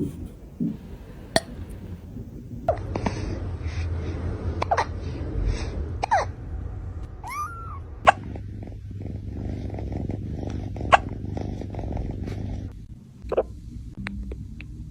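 A cat hiccuping: about eight short, sharp hiccups, irregularly spaced, the kind a cat gets from eating its food too fast.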